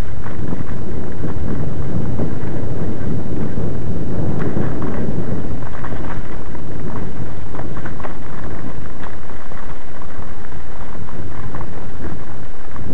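Heavy wind noise on the microphone of a camera riding a mountain bike down a bumpy dirt track, with scattered knocks and rattles from the jolts.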